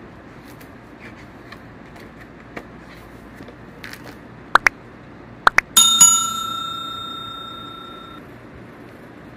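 Subscribe-button animation sound effect: two pairs of sharp mouse clicks, then a bell dings once and rings away over a couple of seconds. Faint handling ticks lie under it.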